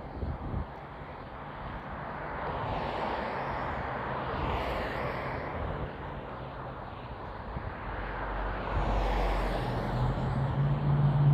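Road traffic passing: a vehicle goes by with a rising and falling rush of noise, then a motor vehicle's low engine hum grows steadily louder toward the end as it approaches.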